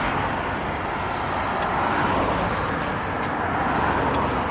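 Road traffic: cars driving past one after another, a steady noise of tyres and engines that swells gently as each vehicle goes by.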